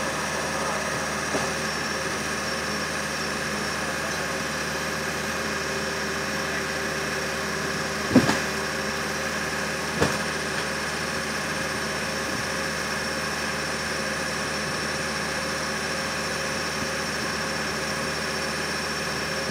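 Steady hum and whine of an airliner cabin on the ground, a constant drone with several held tones, with two brief knocks about eight and ten seconds in.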